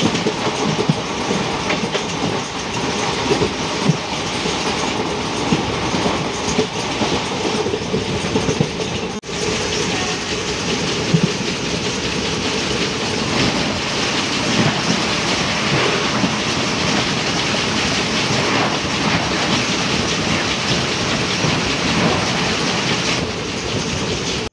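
Express train running at speed, heard loud from an open coach doorway: a continuous rumble with wheels clattering over the rail joints. At the start a passing express on the next track adds its own rush of coaches close alongside; the sound briefly drops about nine seconds in.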